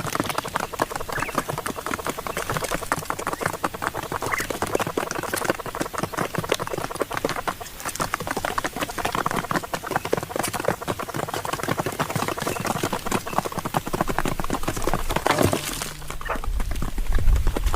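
Birds chattering in a dense stream of rapid short calls, with a low rumble coming in near the end.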